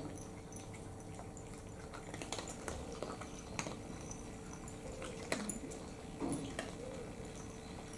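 Several cats eating from small ceramic bowls: scattered soft clicks and ticks of chewing, licking and tongues and teeth against the bowls, over a faint steady hum.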